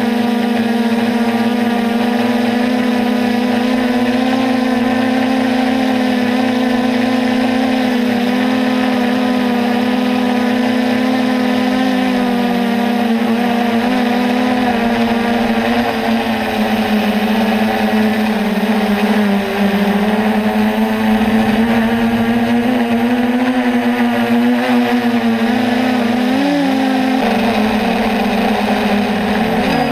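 Multicopter's electric motors and propellers whining loud and steady, heard close up on the aircraft. The pitch wavers as the motors change speed in flight, dipping briefly twice near the end.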